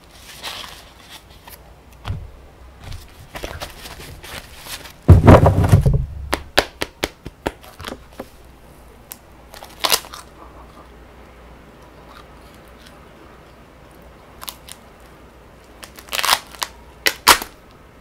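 Thin coloured paper sheets crunching and tearing as a thick stack is bitten through, in sharp crackling snaps. The loudest bite comes about five seconds in, with more crisp snaps near ten seconds and again near the end.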